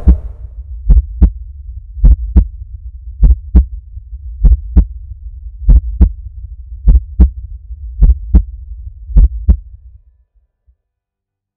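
Heartbeat sound effect: eight slow double thumps, about one lub-dub every 1.2 seconds, over a low hum. It stops about ten seconds in.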